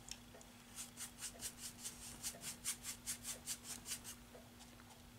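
Flat paintbrush scrubbing acrylic paint onto a canvas in quick back-and-forth strokes, about six a second, starting about a second in and stopping about four seconds in. The strokes are faint and scratchy.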